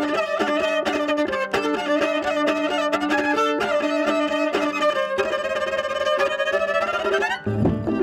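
Solo viola bowing, with several layers sounding at once: a short low note repeated in a steady pattern under a held, higher melodic line, as built up with live looping. The sound cuts out for a moment near the end and then resumes.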